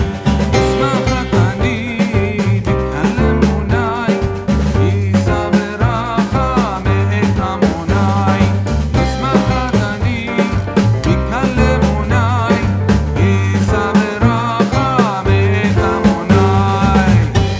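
Music playing: a song with bass, drums, guitar and a wavering melody line.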